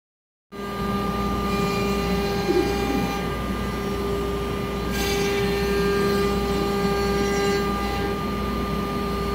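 CNC router spindle and its dust collection running steadily while the bit cuts an outline in a wood panel: a constant machine hum with a steady whine. Some of the higher tones drop out from about three to five seconds in, then return.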